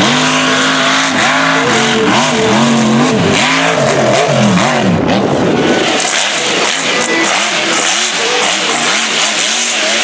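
Racing mega truck engine revving hard, its pitch climbing and dropping again and again in quick succession as the truck throws dirt around the course. The sound changes about halfway through, as a different truck takes over.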